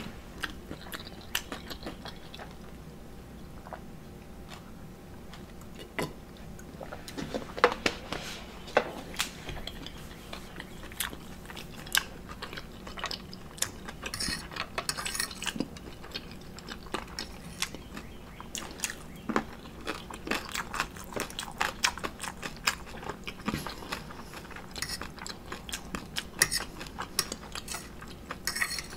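Close-up eating sounds: a metal fork clinking and scraping on a ceramic plate, with chewing and mouth sounds of omelet and waffle. Sharp clicks come irregularly, thinning out for a few seconds early on.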